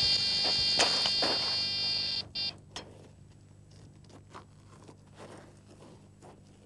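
Electronic carp bite alarm sounding a continuous high-pitched tone for about two seconds, then two short beeps: the signal of a fish taking the bait and running. Faint clicks and knocks follow.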